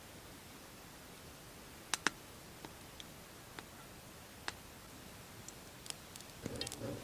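Scattered sharp clicks over a faint steady hiss, a close pair of them about two seconds in the loudest, with a brief rustle near the end.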